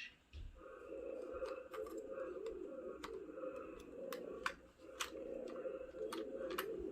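Sith Holocron toy's small speaker playing a steady, rough electronic hum with irregular sharp clicks and crackles.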